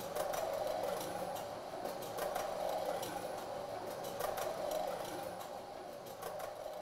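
B&R SuperTrak flexible transport system running: its shuttles roll on their tyred wheels along the track with a steady whir that swells and eases, over scattered light clicks.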